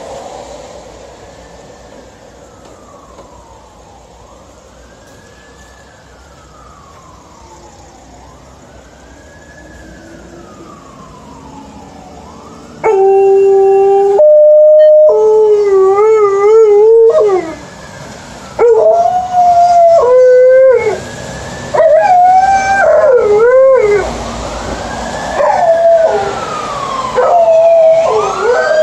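An emergency vehicle's siren wails faintly, rising and falling every two to three seconds. About halfway through, an Alaskan Malamute joins in with loud howling: several long, wavering howls with short breaks, over the siren.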